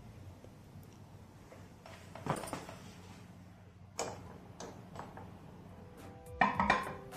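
Glass bottles and beakers clinking and knocking as they are handled and set down on a lab bench: a knock about two seconds in, another about four seconds in, then a quick cluster of ringing glass clinks near the end.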